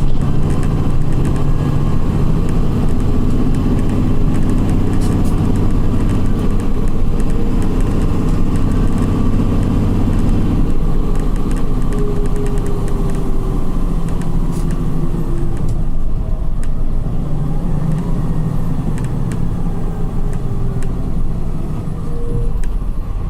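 Volkswagen 17.230 EOD bus's diesel engine and ZF gearbox on the move. The engine pulls steadily, eases off about ten seconds in while a faint falling whine runs for a few seconds, then pulls again near the end.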